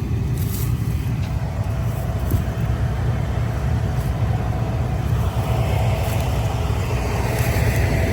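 Combine harvester running steadily, a constant low rumble with a faint steady whine that grows stronger about two-thirds of the way through.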